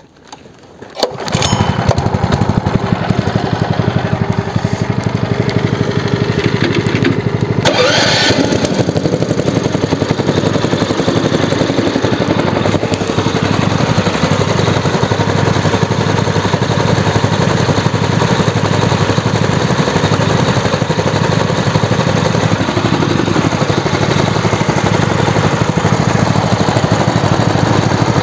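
Lifan KP230 8 hp single-cylinder four-stroke engine pull-started, catching about a second in and then running steadily. A brief louder noise comes about eight seconds in.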